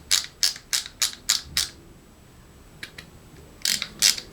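Ratcheting screwdriver handle being turned, its ratchet pawl clicking about three to four times a second. The clicking pauses for about two seconds in the middle, with a couple of faint clicks, and resumes near the end.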